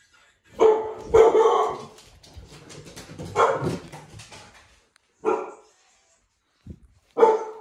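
A dog barking about five times, in loud single barks spread irregularly over several seconds, with two in quick succession near the start.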